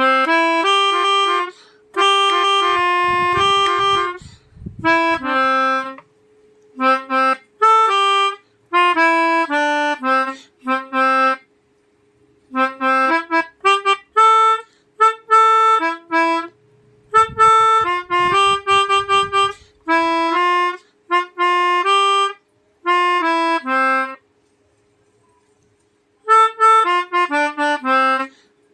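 Pianika (melodica) playing short, quick phrases that mimic the multi-tone 'telolet' Basuri bus horn, with brief pauses between the phrases and a longer pause near the end.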